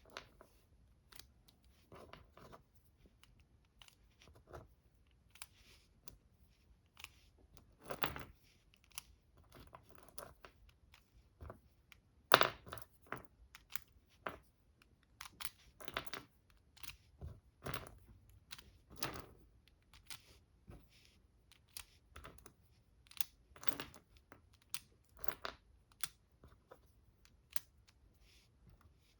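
Packaging of a small ammunition box being handled and opened: irregular rustling, crinkling and light clicks, with one sharper click about twelve seconds in.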